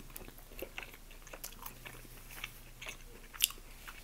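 Close-miked chewing: a person's mouth making soft, scattered wet clicks and smacks while eating, with one sharper click about three and a half seconds in.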